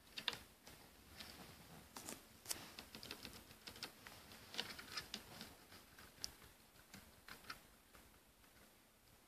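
Faint, irregular light clicks and taps, scattered unevenly and a little thicker in the middle.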